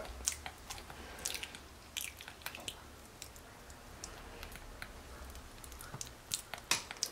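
Capuchin monkey chewing a mouthful of banana: soft, irregular wet clicks of the mouth, a little louder near the end.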